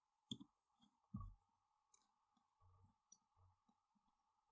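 Near silence broken by faint clicks and soft knocks of small metal knife parts and a screwdriver being handled as the middle screw of a Civivi Elementum II folding knife is driven back in; the two clearest knocks come near the start and about a second in. A faint steady tone runs underneath.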